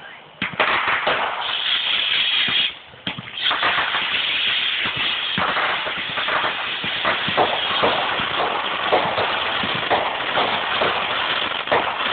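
Fireworks going off: a dense run of crackling pops and bangs with a short lull about three seconds in.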